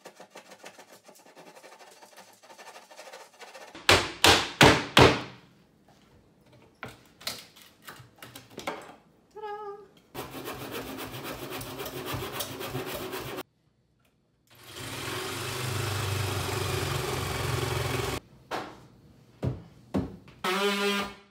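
Demolition of a wooden cabinet face frame: four hard hammer blows in quick succession about four seconds in, then scattered knocks and rubbing on wood, and a power saw running steadily in two stretches of a few seconds each.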